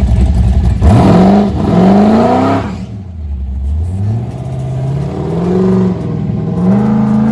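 LS V8 with a big lumpy cam, in a Holden ute, idling choppily and then revved in several blips, the pitch rising and falling each time.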